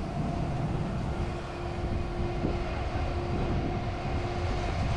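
Steady drone of idling machinery: a low rumble under a constant, even hum.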